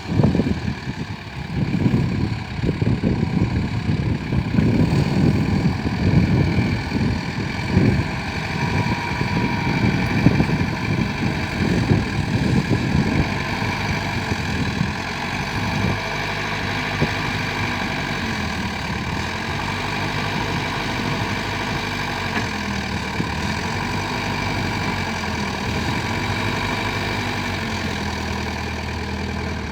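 Tata JD315V engine running during a test run after its transmission was repaired. It surges unevenly for the first dozen seconds or so, then settles into a steady run with a soft regular wavering about every second and a half.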